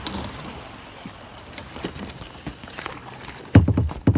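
Kayak moving on fast-flowing water: a steady water hiss with scattered light knocks, then two loud thumps near the end.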